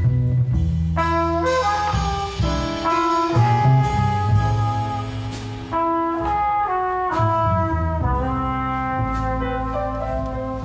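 Live jazz ballad: a trumpet plays the melody in held and moving notes over piano, upright bass and drums. The trumpet line comes in about a second in.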